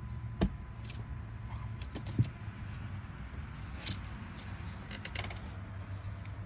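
A ferret and a Border Collie scuffling in play: two sharp knocks and scattered light clicks and rustles over a steady low hum.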